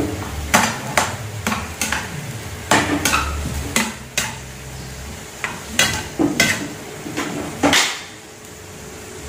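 A metal spatula stirring chunks of oncom in a stainless steel frying pan: irregular scrapes and clinks of metal on metal, about one or two a second. The strokes stop near the end.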